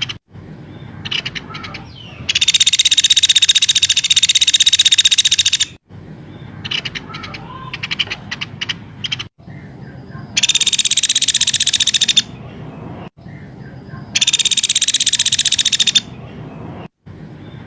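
Songbird calls from a bird-tutoring recording: three long, fast, buzzing trills, the first about three seconds long and the others about two, with short sharp chirps and whistles between them.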